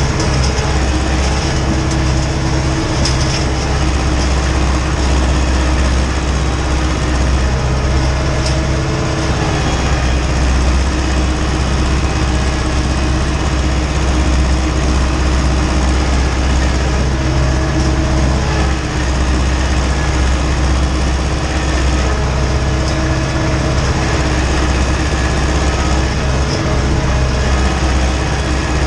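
Ursus tractor's diesel engine running steadily under load as it pulls a tillage cultivator, heard from inside the cab.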